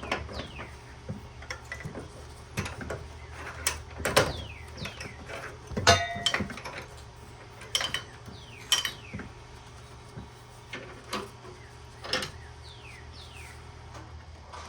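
Scattered metal clicks, knocks and clanks of hand tools working a heated furnace burner fitting held in a vise, trying to break it loose; the fitting is still tight. The loudest knock, about six seconds in, rings briefly. A steady low hum runs underneath and stops near the end, and a few short falling chirps sound here and there.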